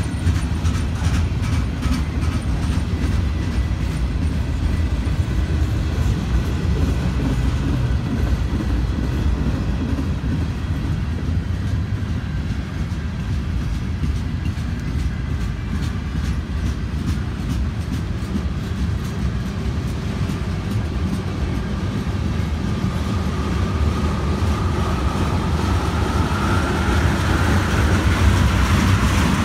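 Train rolling past on the rails: a steady low rumble, with wheels clicking over rail joints through the first half. A thin high squeal rises near the end.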